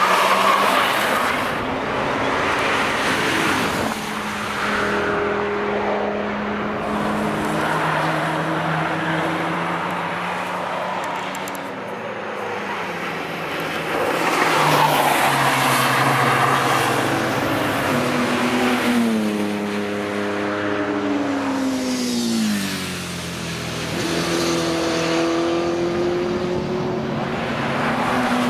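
Track-day cars driving past one after another through a banked corner, engines revving up and down. About two-thirds of the way through, one engine note drops steadily over a few seconds as the car slows, then a rising note follows as another accelerates.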